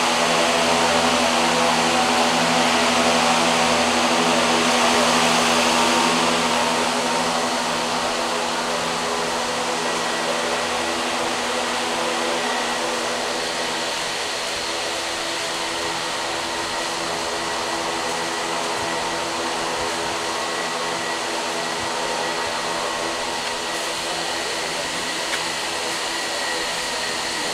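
Greenhouse ventilation fans running: a steady rush of air over a motor hum, a little louder for the first six seconds or so, then easing slightly.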